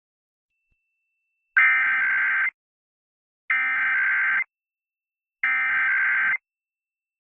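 Emergency Alert System SAME header: three identical bursts of digital data tones, each about a second long and about a second apart. It is the coded header that tells EAS receivers the alert type, area and time, here opening a test.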